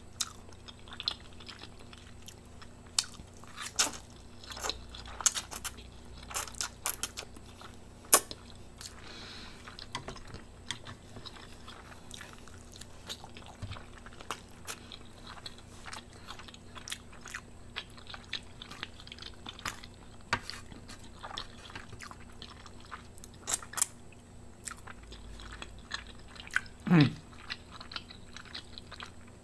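Close-miked chewing of a mouthful of instant noodles, with wet mouth clicks and smacks scattered irregularly throughout. A brief low vocal sound falls in pitch near the end.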